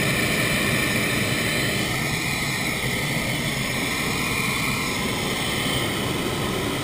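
Hot air balloon's propane burner firing overhead: a loud, steady rushing blast of noise that holds without a break.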